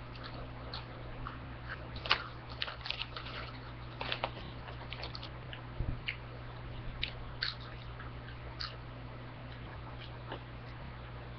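Crunchy chips being chewed in the mouth, a quick run of irregular crisp crunches that is busiest in the first half and thins out toward the end. A steady low hum runs underneath.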